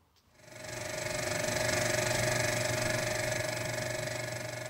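A steady, machine-like hum with a hiss over it, fading in about half a second in and fading out near the end.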